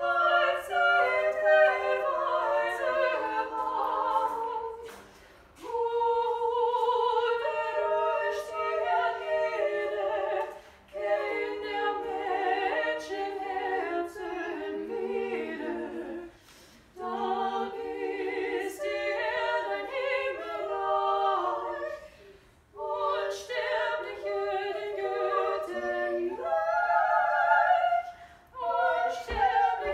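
A small group of women singing unaccompanied in several parts, in phrases of about five seconds with short pauses between them.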